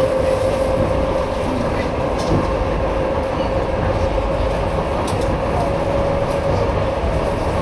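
Suburban electric train running between stations, heard from inside the carriage: a steady rumble with a constant whine held at one pitch.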